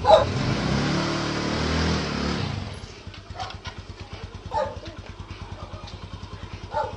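Small motorcycle engine running loudly, revved for about two and a half seconds, then dropping back to a steady idle.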